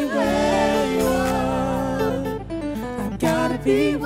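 Live gospel worship band playing, with a woman singing long, gliding notes over electric guitar and a sustained bass.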